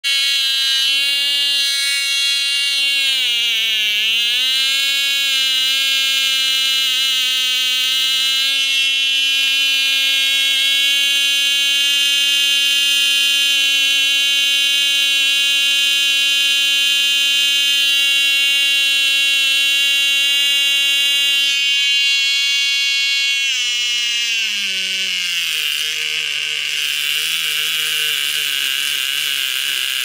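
Cox .049 single-cylinder two-stroke glow engine running steadily at high speed; its pitch sags briefly about four seconds in and recovers. In the last several seconds it is throttled back in steps to a much lower, slower idle.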